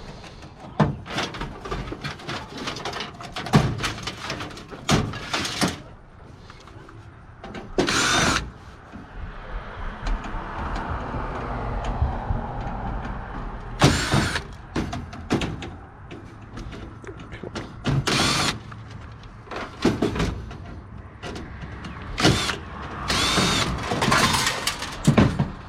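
Parts of a PC tower being worked loose by hand: a string of clicks and knocks, several short scraping and rattling bursts with a metallic ring, and a stretch of rubbing in the middle.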